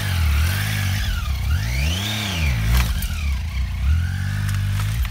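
Adventure motorcycle engine revving up and down repeatedly as the bike pulls away over rough ground, with one bigger rev about two seconds in.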